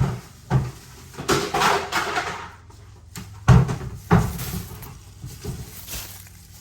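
A handful of knocks and thumps, like a cupboard door opening and closing, with a plastic garbage bag rustling for about a second early on.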